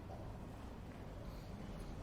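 Quiet breakfast-room ambience: a steady low hum with a couple of faint light clicks near the end.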